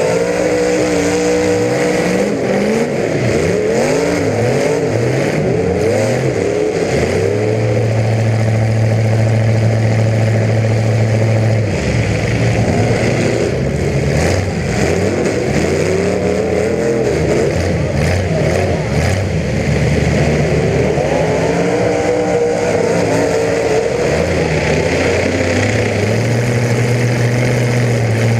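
Several demolition derby car engines revving up and down at the same time, loud throughout, with stretches where one engine holds a steady pitch.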